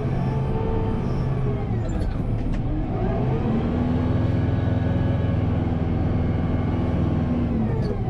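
Kubota M7060 tractor's diesel engine running under load while plowing snow. Its pitch drops about two seconds in, rises back and holds steady, then drops again near the end.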